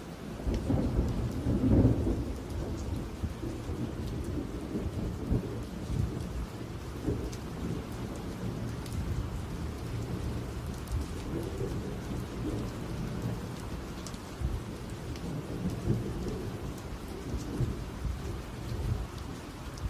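Thunder rumbling through heavy rain, loudest about two seconds in, then rolling on more quietly under the steady rain.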